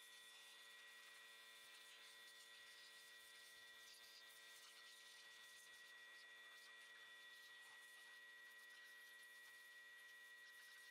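Near silence: a faint steady electrical hum with a thin high whine, unchanging throughout.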